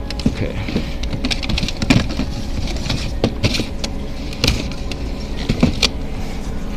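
Steady low hum of store background noise, with irregular clicks and knocks from shoes being handled close to the microphone.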